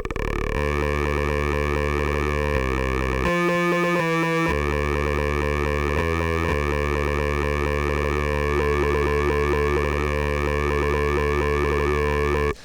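Spire software synthesizer playing a low, buzzy sustained note through a stepped vowel ('talking') filter and phaser, giving a shifting vowel-like wah. The note changes pitch several times between about half a second and six and a half seconds in, then cuts off suddenly near the end.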